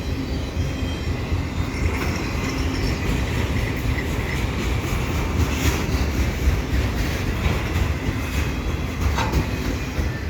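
Freight train of auto rack cars rolling past: a steady rumble of steel wheels on rail, with a few sharp clicks over the rail joints.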